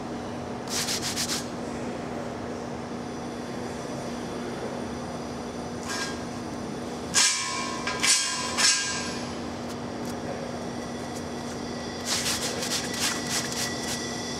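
A metal paint scraper scraping an adhesive black coating off a steel pipe in short groups of strokes, the loudest group about seven to nine seconds in with a brief metallic ring, and a run of quick strokes near the end. A steady hum runs underneath.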